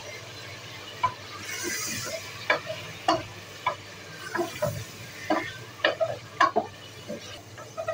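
Wooden spoon stirring beef pieces and ginger-garlic paste in hot oil in an aluminium pressure cooker while the meat browns: irregular knocks and scrapes of the spoon against the pot over a steady frying sizzle, which briefly grows louder and hissier about one and a half seconds in.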